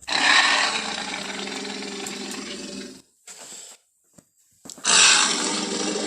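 Tyrannosaurus rex roar sound effects: a loud roar that starts abruptly and fades over about three seconds, a short quieter sound, then a second roar starting near the end.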